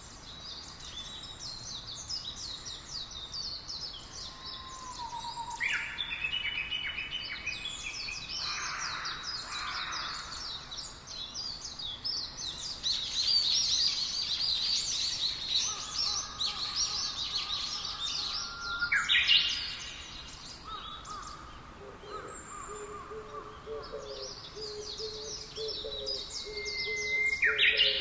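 Several songbirds chirping and trilling at once in a forest chorus, with dense high, quick chirps throughout. In the last third a lower call joins in, repeated over and over.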